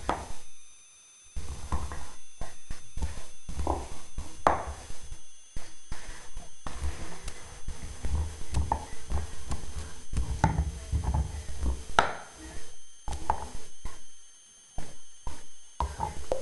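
Bull terrier chewing and crunching a bone: irregular cracks and crunches, broken by two short pauses, one just after the start and one about three-quarters of the way through.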